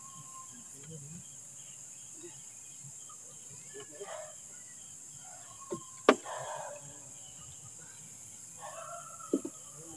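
Night insects, likely crickets, chirping in a steady high-pitched chorus. A sharp knock sounds a little after the middle, with a couple of lighter clicks around it and near the end.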